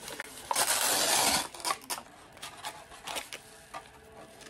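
Paper and plastic packaging of an instant cup udon being torn open, with a loud rip lasting about a second near the start. It is followed by scattered crinkles and light clicks as the lid is peeled back and the seasoning packets are handled.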